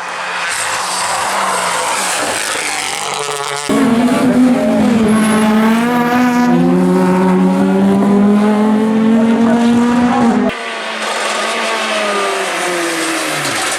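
Rally car engines running hard at high revs, in clips joined by abrupt cuts. First a car is heard further off. About four seconds in, a much louder close car cuts in, holding high revs for about seven seconds. It is cut off suddenly for another car, whose engine note falls near the end.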